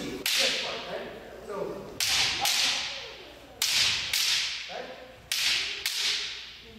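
Bamboo shinai striking kendo armour: sharp cracks, mostly in pairs about half a second apart, every second or two, each ringing on in the gymnasium's echo.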